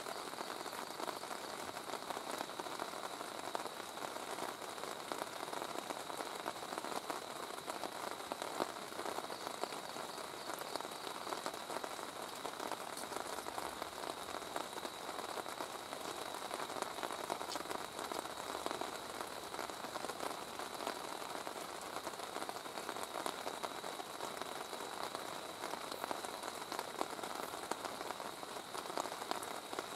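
Steady rain falling on a tent, a dense even hiss full of tiny drop hits, heard from inside the tent.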